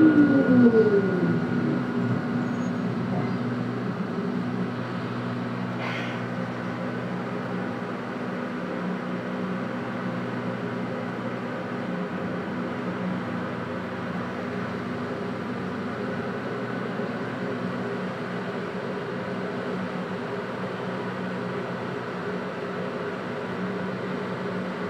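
Hitachi Rail tram heard from inside the passenger cabin: a whine from the traction motors falls in pitch as the tram slows, and a steady electrical hum from the tram's on-board equipment and ventilation follows. There is a single short click about six seconds in.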